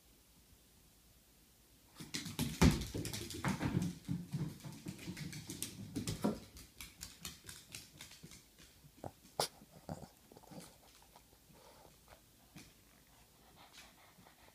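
A Boston terrier scrabbling about on a hardwood floor: a dense burst of knocks and claw clicks with a thud about two and a half seconds in, then lighter, sparser clicks that thin out.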